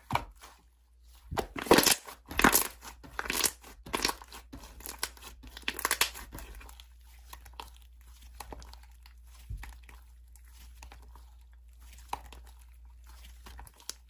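Slime being squished and worked by hand, giving irregular crackling, crunching clicks. The crackles come thick and fast for the first half and thin out to scattered pops later.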